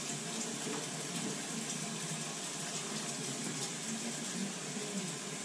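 Water running steadily from a shower fed through a Moen single-handle valve.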